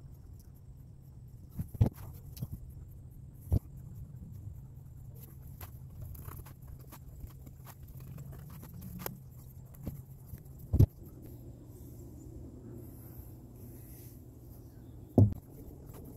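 Irregular knocks and taps of hand tools on a workbench: four sharp knocks among lighter clicks, over a low steady hum.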